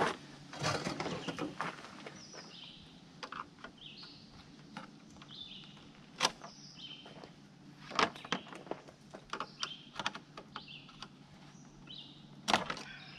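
Sharp knocks and clicks of hard parts and tools being handled at the front of a pickup truck: a cluster at the start, two more singly, and the loudest near the end. A bird chirps over and over in the background.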